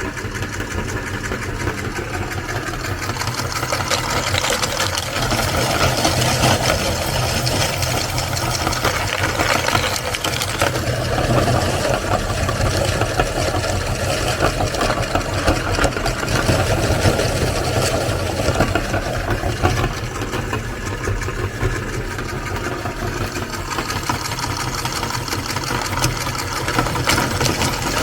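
Motor-driven meat grinder running steadily as it grinds ice cream cones.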